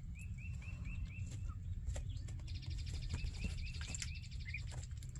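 Week-old ducklings and goslings peeping: a run of short, evenly repeated peeps, about three a second, with a faster, higher twitter for a couple of seconds in the middle, over a low steady hum.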